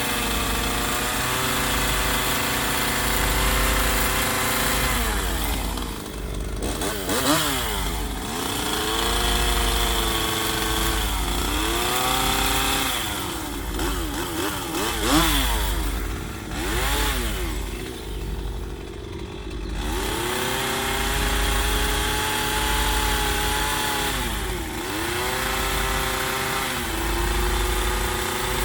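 Chainsaw carving a wooden log. It runs steadily, then in the middle its engine pitch dips and climbs back several times before it settles again.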